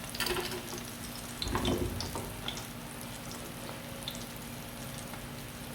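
Whole ripe plantains frying in oil in a pan, a steady sizzle, with a couple of brief handling knocks in the first two seconds.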